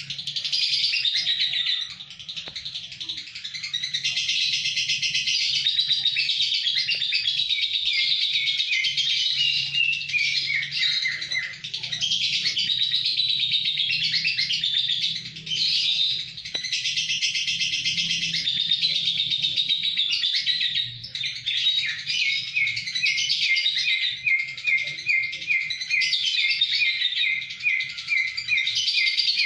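Lovebird singing a long, nearly continuous chattering song of rapid high notes, with runs that fall in pitch and, near the end, quick rows of repeated short notes; it breaks off briefly a few times.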